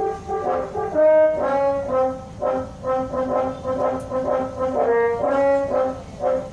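Bus telolet horn, a multi-trumpet air horn, playing a tune as a quick run of short notes at changing pitches.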